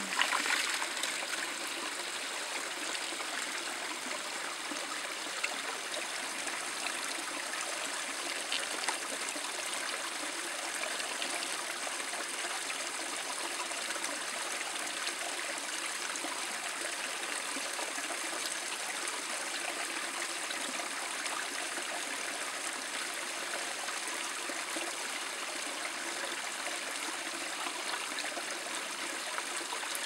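Small waterfall trickling down a rock face and splashing steadily into a shallow pool of a mountain stream.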